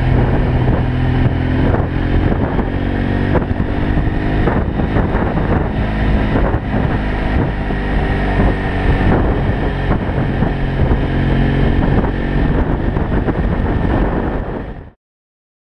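BMW F800GS Adventure's parallel-twin engine running under way, its note shifting a few times, with wind noise on the microphone. The sound cuts off suddenly shortly before the end.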